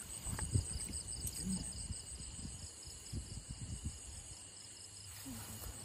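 Crickets chirping in a steady, even pulsing chorus, with irregular soft low thumps from walking through wet grass.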